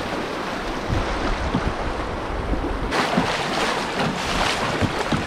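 River water rushing and splashing, with wind buffeting the microphone. Short splashes come more often from about three seconds in.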